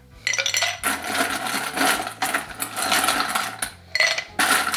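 Ice cubes clattering and clinking as they are taken by hand from a metal bowl and dropped into a drinking glass, in several runs of sharp clinks with short gaps between them.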